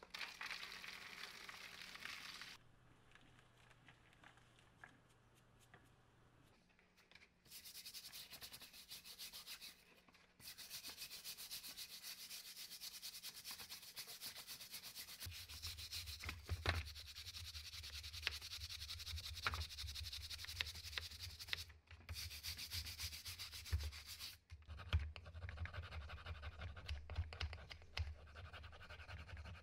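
Water pours into a plastic tub for the first couple of seconds. Then, after a short lull, a stiff brush scrubs the plastic impact-driver housing halves in soapy water: long stretches of fast, rasping scrubbing with short pauses. A low steady hum runs under the second half.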